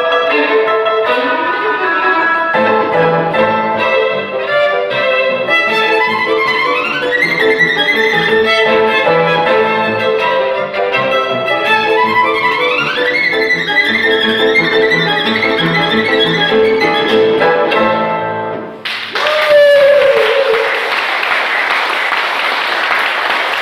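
Solo violin playing a melody over an accompaniment with bass notes, with two rising slides partway through. The music ends about 19 seconds in and audience applause follows.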